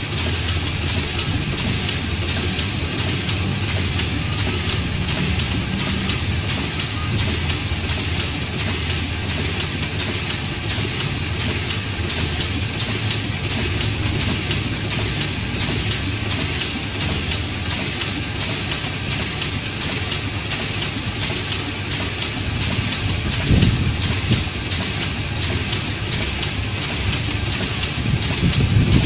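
Chinese Zhongye sheet-fed offset press running a print job: an even, continuous mechanical noise from its rollers and sheet feed, a little louder about 23 seconds in and again near the end.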